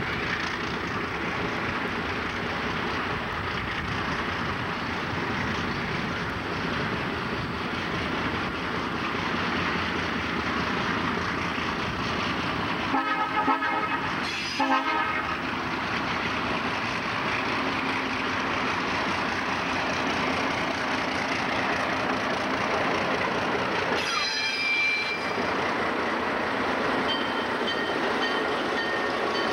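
Diesel road-switcher locomotives hauling a freight train past, their engines and wheels making steady noise throughout. The air horn sounds two short blasts about halfway through, and there is a brief higher-pitched note later on.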